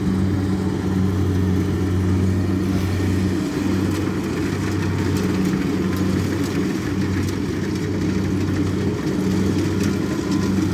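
Kubota DC60 combine harvester's diesel engine running steadily as the machine cuts and threshes rice, a continuous low hum.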